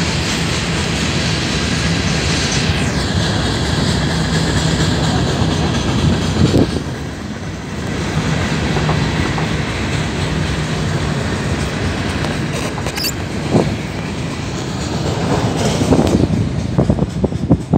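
Freight train cars rolling past close by: a steady rumble of steel wheels on rail, with clacks over rail joints, several of them late on. A brief high wheel squeal comes about thirteen seconds in.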